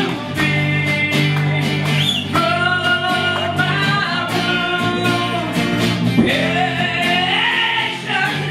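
Live band music: a male voice singing over strummed acoustic guitars and electric guitar, with a steady beat.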